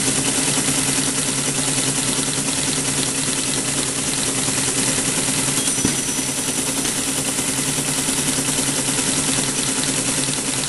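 Teletype Model 33 ASR running a punched paper tape through its reader and printing from it: a rapid, even mechanical clatter over the steady hum of its motor.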